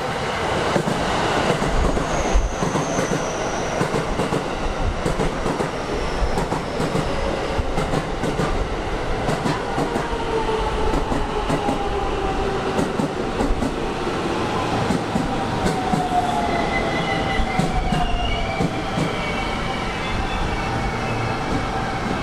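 A JR West commuter electric train pulling in alongside the platform, its wheels clacking over the rail joints. The motors' whine falls slowly in pitch as the train brakes, and higher tones join in during the second half.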